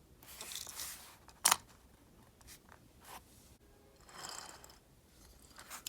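Handling noise from small objects being moved: two soft stretches of rustling and scraping, with a sharp click about a second and a half in.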